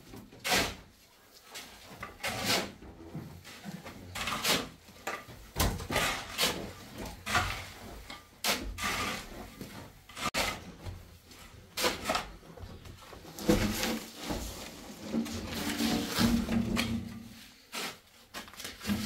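Hand work on a stone or tile floor being laid: irregular scraping and knocking strokes, about one or two a second.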